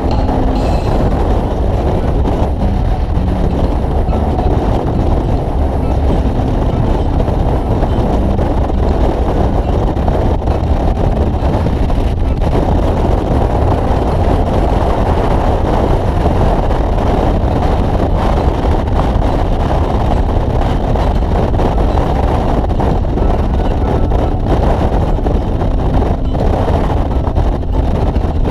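Harley-Davidson touring motorcycle's V-twin engine running at a steady cruising speed, mixed with a steady rush of wind on the bike-mounted microphone.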